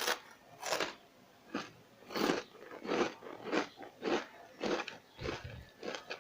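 Crisp fried ghevar (mouchak pitha) crunching as it is bitten and chewed, a dry crunch about every half second. The crunch is the sign that the pitha is well fried and crispy.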